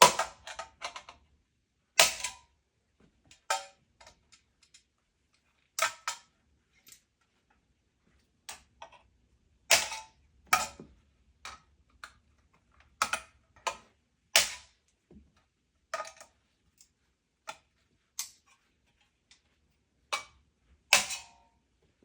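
Knockouts being struck out of metal electrical boxes: a series of sharp metal knocks and clanks, irregularly spaced about one to two seconds apart, with quieter clinks between.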